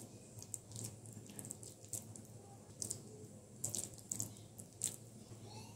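A hand squeezing and rolling wet, sticky chicken pakora mixture (minced chicken, onion, gram flour and egg) into small balls: faint, irregular squelches and smacks of the wet mixture.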